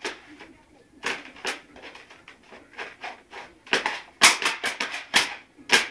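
Rubber swim fins slapping on a hard floor as someone waddles in them: irregular slaps, coming closer together in the second half.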